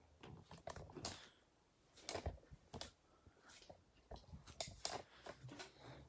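Faint handling noises: a dozen or so scattered taps, clicks and rustles as hands move about a PC case and its cardboard packaging.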